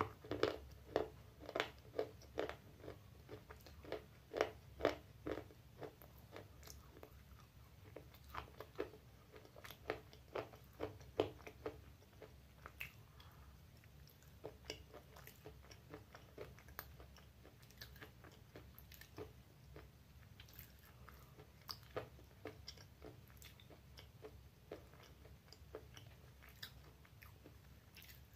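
A mouth crunching and chewing pieces of baked clay pot: a quick run of sharp crunches, about two a second, for the first dozen seconds, then sparser, irregular crunches.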